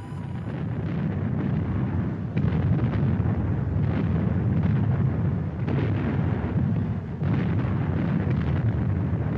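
Wind buffeting the microphone: a loud, irregular low rumble with a few brief louder gusts.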